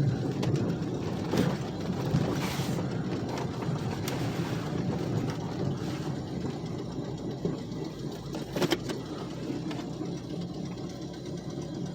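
Chevrolet Cavalier engine running steadily at low revs while the car is driven. The engine has a rod knock, so it is being kept gently loaded.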